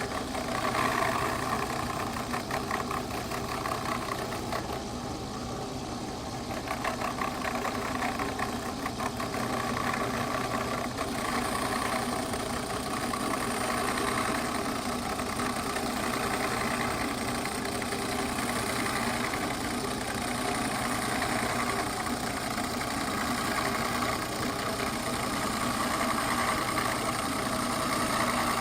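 The Oliver 299 planer's built-in knife-grinding attachment running steadily, its motor-driven stone grinding along a straight planer blade to put the edge back on with a light cut.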